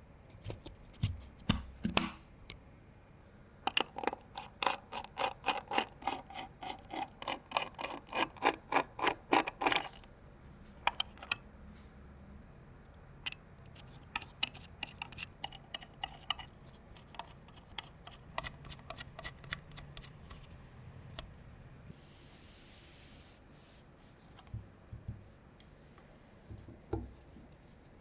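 Hands working on PC parts during assembly: a quick run of sharp clicks, about five a second, for several seconds, then scattered small ticks and taps, with a brief hiss about two-thirds of the way through.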